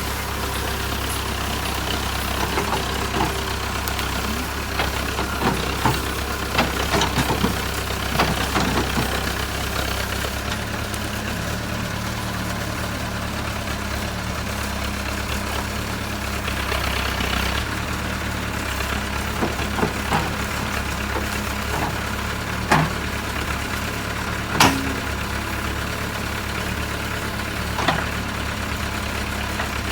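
JCB 3CX backhoe loader's diesel engine running steadily, with scattered sharp knocks: a cluster between about six and nine seconds in and a few single ones near the end.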